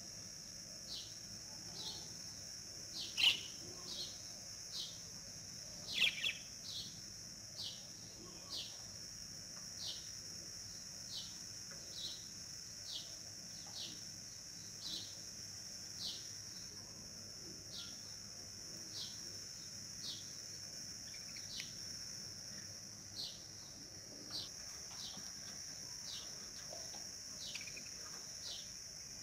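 A bird calling over and over with a short, falling chirp about once a second, two of the calls louder than the rest, over a steady high-pitched hiss.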